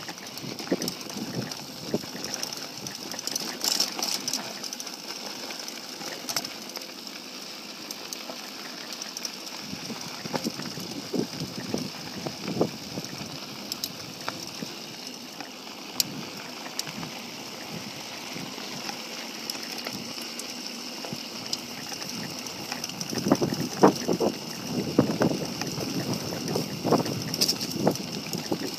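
Mountain bike rolling over a dry dirt and gravel trail: tyres crunching, with scattered clicks and rattles from the bike over bumps, busier in the last few seconds.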